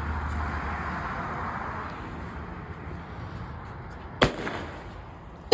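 Consumer firework going off: a steady hiss for about three seconds that fades, then two sharp bangs about a second apart, the second louder, near the end.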